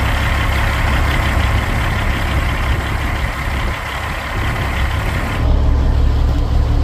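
Semi truck on the move: a steady low diesel engine drone under road and tyre noise. About five seconds in, the road noise falls away and the low engine drone grows stronger.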